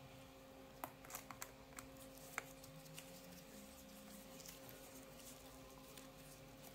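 Faint, scattered small clicks of a Torx T5 precision screwdriver driving a case screw back into a laptop's bottom cover, the clicks bunched in the first two and a half seconds over a faint steady hum.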